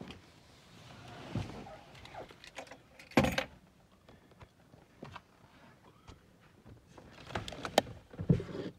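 Scattered clicks and knocks inside a car's cabin, with one loud knock about three seconds in and a cluster of sharp clicks near the end. No engine running yet.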